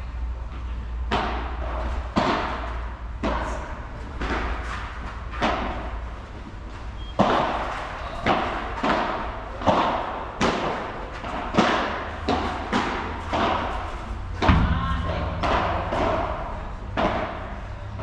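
A padel rally: the ball is struck with solid padel rackets and bounces on the court. It makes a steady run of sharp knocks, roughly one a second, each echoing briefly in the large hall.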